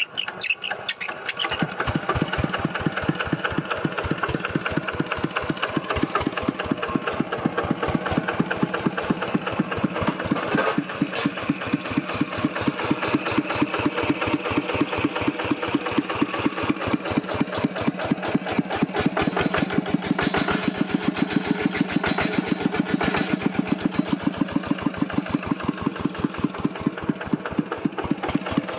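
Kubota EA6 single-cylinder diesel engine hand-cranked to a start, catching within about a second and a half, then running steadily with even, distinct firing beats.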